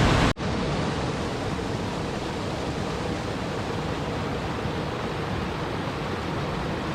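Steady rush of flowing water. About a third of a second in, it cuts out for an instant and comes back a little quieter.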